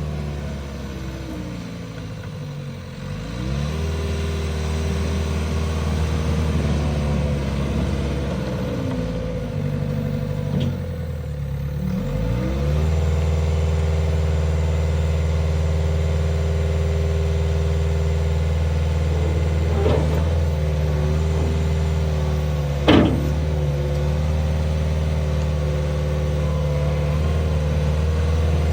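Volvo MCT125C track loader's diesel engine running, its speed climbing twice from a low idle and then held steady at a higher speed. Two short sharp knocks come late on, the second the louder.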